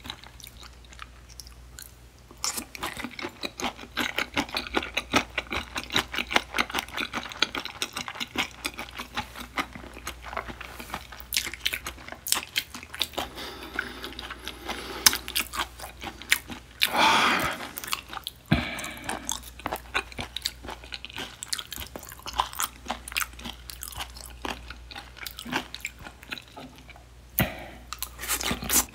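Close-miked chewing of raw butterfish sashimi sliced with its bones in: a steady run of small crunches and clicks as the soft bones are bitten through. About two-thirds of the way through there is one louder rushing sound.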